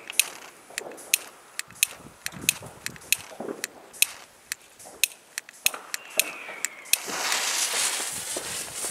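Sharp cracks of firecrackers going off all around, several a second, with a short falling whistle near the six-second mark. About seven seconds in, a Weco HighSpeedBombs Tiger rocket launches with a loud rushing hiss as it climbs, trailing sparks.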